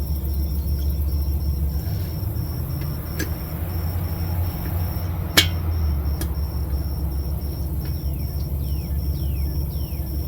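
A few sharp clicks of small parts and screws being handled and fitted, the loudest about five seconds in, over a steady low rumble.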